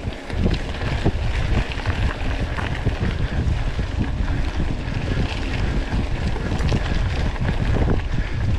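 Wind rumbling on the microphone with many small knocks and rattles, as from a mountain bike moving fast over a rough forest trail.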